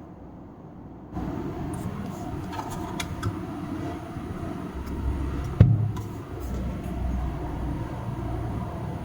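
Milwaukee M18 rapid charger's cooling fan hissing steadily, coming on about a second in, with a low rumble under it and one sharp knock a little past halfway.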